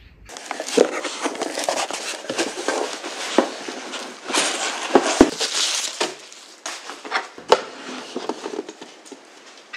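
Packaging rustling and crinkling as it is handled, with a few sharp knocks. It starts abruptly just after the start and thins out near the end.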